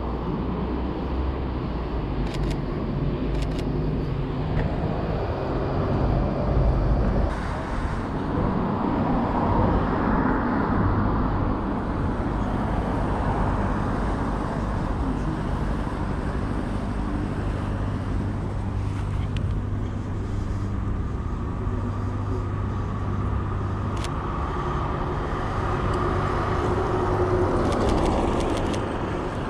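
City street traffic: cars driving past and engines running, swelling as vehicles pass, with a few brief clicks.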